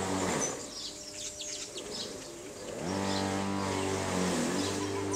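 Village weavers chattering in short, high chirps over a steady low motor hum. The hum winds down about half a second in and winds back up about three seconds in.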